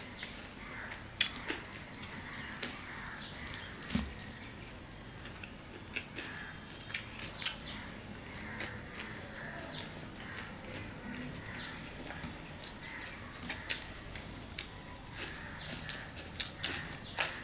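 Close-miked mouth sounds of a man eating ruti flatbread with mutton curry by hand: chewing with irregular wet smacks and clicks.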